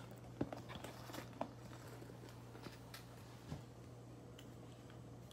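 Faint handling noises: a few soft clicks and light knocks as a clear plastic pouch of small plastic spray bottles is moved and set down on a stone countertop, over a low steady hum.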